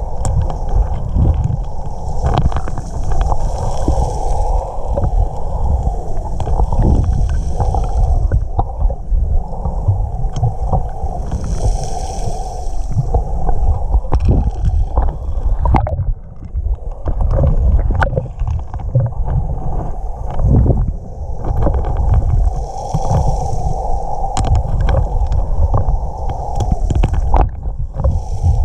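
Underwater audio from a camera held in shallow water over a cobble bottom: a muffled, unsteady low rumble of moving water with frequent clicks and knocks.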